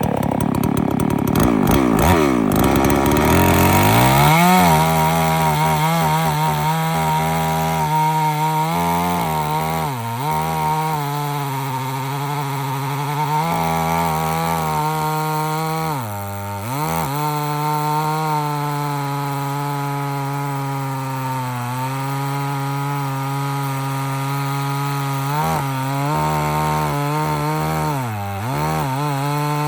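Farmmac F380W two-stroke chainsaw running at full throttle while ripping a board on a chainsaw mill. The engine climbs to speed about four seconds in, holds a steady high note, and dips briefly under load three times.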